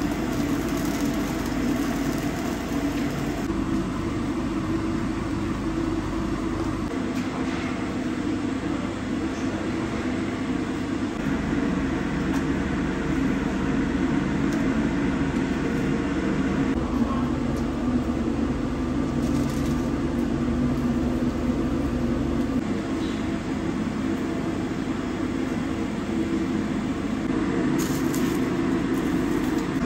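Steady roaring kitchen noise, the fire under the big cast-iron kazan, its tone shifting abruptly several times.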